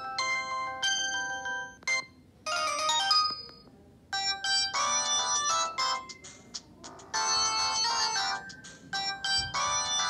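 Samsung GT-E2120 mobile phone playing previews of its built-in polyphonic ringtones through its small speaker, each melody cut off as the next one in the list is selected, with short breaks about two and four seconds in. A denser, busier tune plays through the second half.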